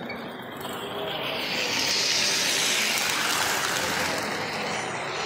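3-rail O scale model train running past close by: a noisy rush of wheels on track that swells from about a second in, is loudest around the middle, and fades near the end.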